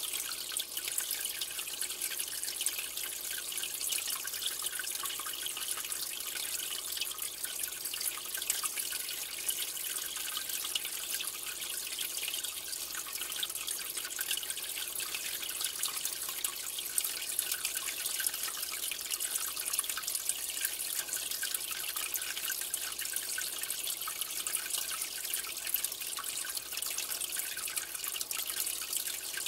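Aquarium water trickling and bubbling steadily, with a dense fine crackle of small splashes and bubbles at the surface.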